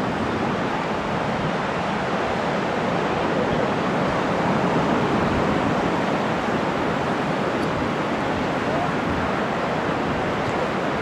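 Ocean surf washing on the shore in a steady rush, swelling slightly about halfway through.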